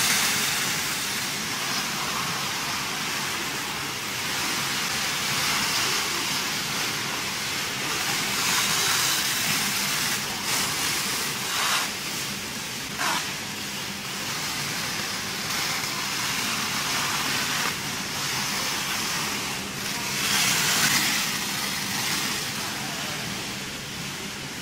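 Plastic stretch film being pulled off hand-held rolls and wrapped around machines: a hissing crackle that swells and fades every few seconds, with a couple of brief sharper sounds near the middle.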